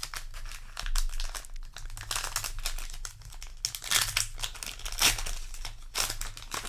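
Foil wrapper of a Magic: The Gathering collector booster pack being crinkled and torn open: dense crackling of the plastic, with louder surges several times.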